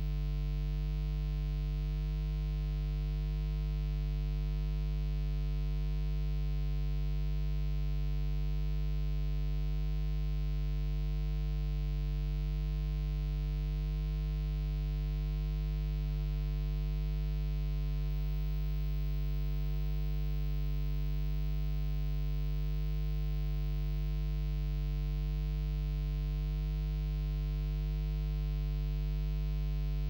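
Steady low electrical hum, mains hum with its buzzy overtones, unchanging in pitch and level.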